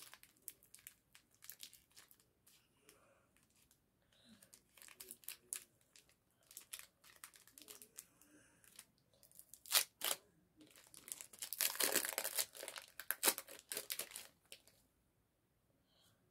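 Foil wrapper of a Pokémon TCG booster pack crinkling and tearing as it is opened by hand, a run of crackles that grows loudest from about ten seconds in and stops about fifteen seconds in.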